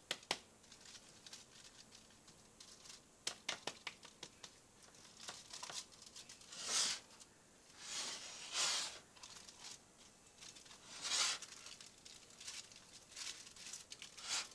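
Aluminum foil lining a baking dish crinkling and rustling as hands press and shape a raw meatloaf on it, with soft clicks and pats throughout and four louder rustles in the second half.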